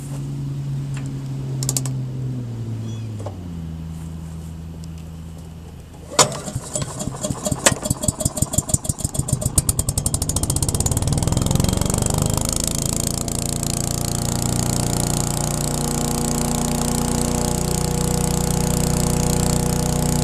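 Wood chipper's small gasoline engine pull-started: after a low steady hum, a sharp crack about six seconds in, then the engine fires in beats that come faster and faster and settles into steady running at speed about twelve seconds in.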